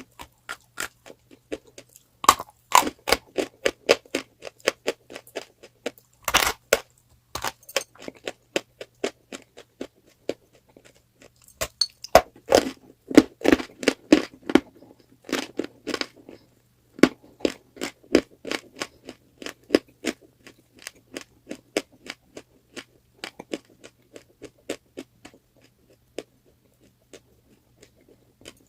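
Close-up crunching of chalk, bitten and chewed in irregular clusters of crisp cracks, thinning out over the last few seconds. A faint steady hum lies underneath.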